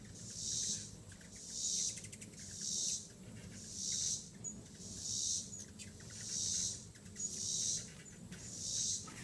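Insects calling in the trees, a high buzzing hiss that swells and fades about once a second, steady in rhythm. A few faint short high chirps come in between the pulses.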